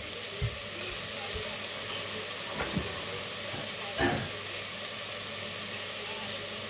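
Garlic frying in a pan: a steady sizzle, with a few light knocks, the loudest about four seconds in.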